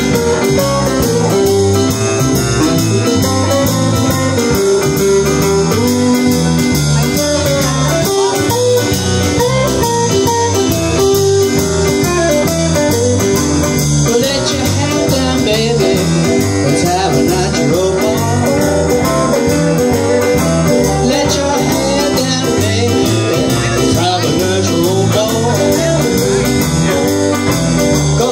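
Live blues band playing a shuffle: electric guitar, bass guitar, drum kit and keyboard, with a steady rhythm.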